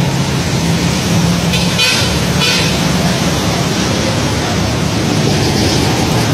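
Busy city road traffic: a steady engine drone under a loud rushing noise, with two short vehicle horn toots about two seconds in.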